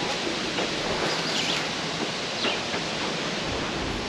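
Steady outdoor background hiss with no clear single source.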